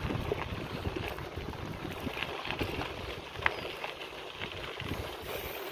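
Mountain bike rolling along a dirt road: steady tyre noise on the loose surface with frequent small rattles and knocks from the bike.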